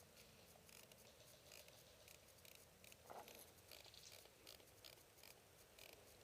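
Near silence with faint, scattered rustling and light ticks, one slightly louder about three seconds in.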